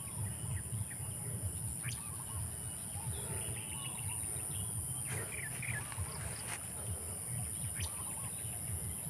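Steady high-pitched insect drone, like crickets, with scattered small bird chirps, a few light clicks, and a low rumble underneath.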